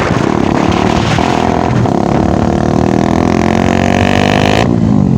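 Bajaj Dominar 400's single-cylinder engine running loud with its exhaust silencer removed, the motorcycle being ridden. Its pitch climbs steadily through the middle, then the sound cuts off sharply near the end.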